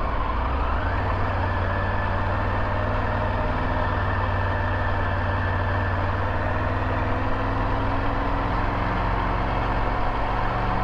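Triumph Tiger 900 GT Low's three-cylinder engine running steadily under way on the open road, with a wash of road and wind noise. Its pitch rises over about the first second, then holds level.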